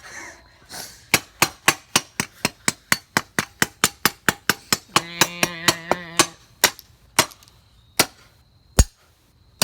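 A fast run of sharp, hard blows, about four a second, hammering at the pieces of a smashed stopwatch. It slows to a few single blows near the end.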